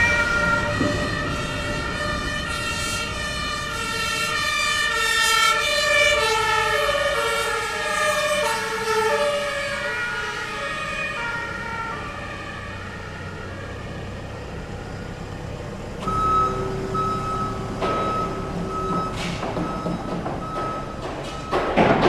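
German emergency vehicle's two-tone siren alternating between two notes as it passes, its pitch dropping and fading as it drives away, over steady street traffic. Later a short beep repeats steadily, about twice a second.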